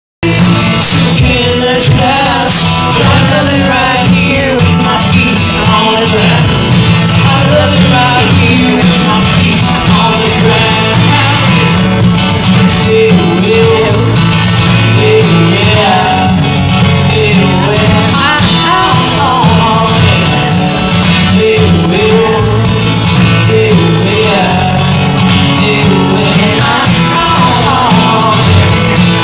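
Steel-string acoustic guitar strummed steadily through a stage PA at a live solo performance, loud and continuous, with a melodic line gliding over the chords.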